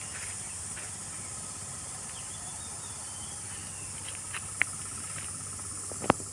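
Steady high-pitched drone of an insect chorus, with two sharp clicks about four and a half and six seconds in.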